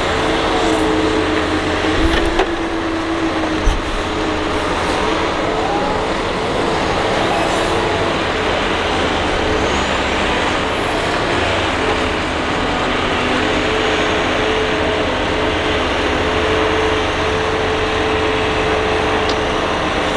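Doosan DX225LC hydraulic excavator running steadily under load as it digs and swings, its diesel engine and hydraulics giving an even drone, with two short knocks in the first four seconds.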